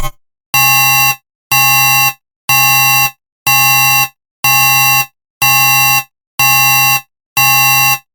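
Science-fiction alarm sound effect: a harsh, buzzy alarm tone pulsing about once a second, eight identical beeps of a little over half a second each.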